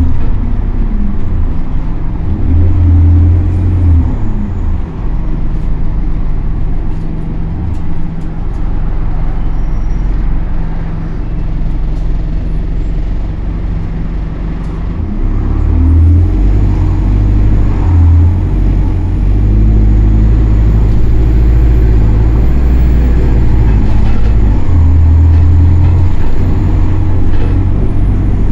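London bus DLE30026's diesel engine, heard from inside the cabin as the bus is driven hard: the engine note climbs and drops again several times as it revs up through the gears, over steady road and tyre noise, and grows louder about halfway through.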